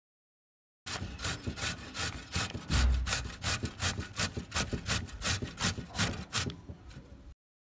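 A mooli (white radish) being grated on a metal box grater: rapid rhythmic scraping strokes, about four a second, starting about a second in and cutting off shortly before the end, with one heavier stroke and a low thump about three seconds in.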